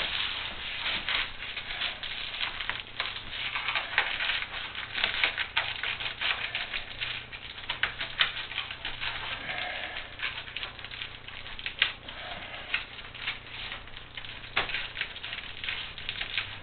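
Crinkling and crackling of reflective foil bubble-wrap insulation being handled and pushed into a metal garage door panel, with irregular sharp clicks throughout.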